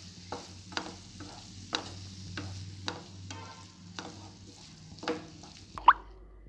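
Spatula stirring and scraping shredded chicken and masala around a nonstick frying pan, about two strokes a second, over a steady frying sizzle. Near the end comes a brief sharp squeak, the loudest sound, and then the sizzle drops away.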